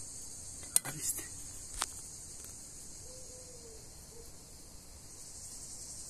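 Cicadas singing: a steady, shrill, high-pitched buzz with a few sharp clicks at about one and two seconds in.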